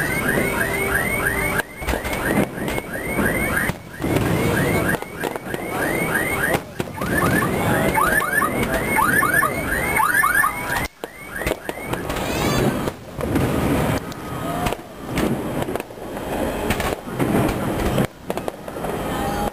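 Aerial fireworks display: shells bursting and crackling in a dense run of bangs. Through roughly the first half, a fast, regular run of short squeals, about four a second, sits over the bangs.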